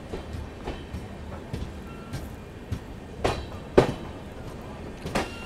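Express train running, heard from on board: a steady rumble with irregular clatter of the wheels over rail joints, and two sharp knocks a little past the middle.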